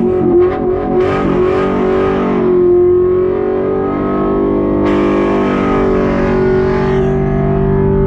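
Car engine held at high revs through a burnout, its note steady, while the used GT Radial tyres spin on the pavement to burn them off.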